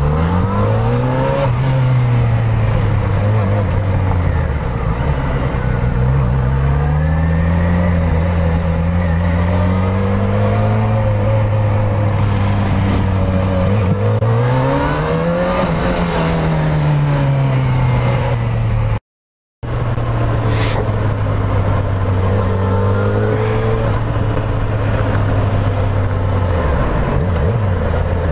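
Motorcycle engine running under way, its pitch rising and falling repeatedly as the bike speeds up and eases off, over steady wind and road noise. The sound cuts out completely for about half a second roughly two-thirds of the way through.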